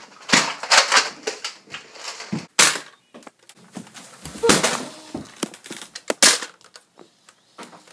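A mock fight's sharp bangs and thuds, about half a dozen, irregularly spaced, with scuffling and rustling in between.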